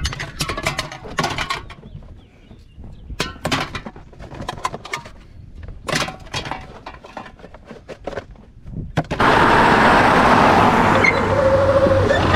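Empty aluminium cans tossed into a plastic trash bin, clattering in several separate bursts, followed by the empty cardboard case landing. About nine seconds in, a steady loud rush of wind and road noise from a moving vehicle suddenly takes over.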